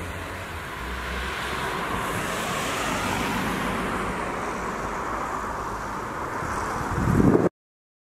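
Strong wind rushing through tree branches, swelling and easing, with a low rumbling gust on the microphone near the end before the sound cuts off suddenly.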